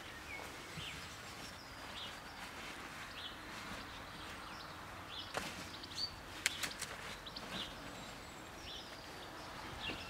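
Small birds chirping in short repeated calls, with a few sharp snaps about halfway through as rhubarb stalks are pulled from the plant.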